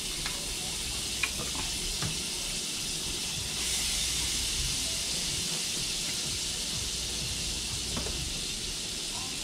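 Butter slices sizzling as they melt in smoking-hot olive oil in a cast iron pan, a steady hiss that grows louder about three and a half seconds in as more butter goes in.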